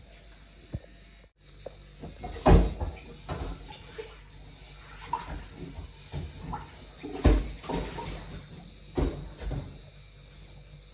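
Kitchen clatter of pans and dishes being handled at a sink: a series of knocks and clunks, the loudest about two and a half and seven seconds in and another near nine seconds, with lighter clinks between.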